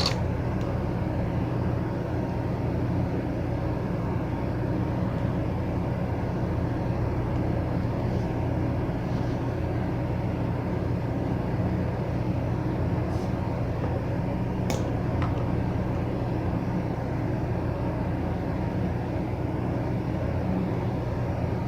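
Steady low mechanical hum with a background hiss, unchanging throughout, with a couple of faint clicks about two thirds of the way through.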